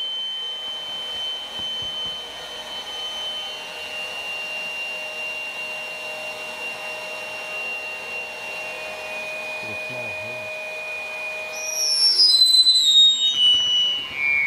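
CarCapsule inflation air pump running steadily as it blows up the Showcase enclosure. Its whine steps down slightly in pitch as the bubble fills. About twelve seconds in, a louder high whistle starts that slides down in steps.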